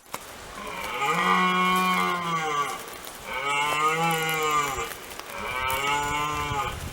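A cow mooing three times in a row, each a long drawn-out call with the pitch rising and then falling; the last call is shorter.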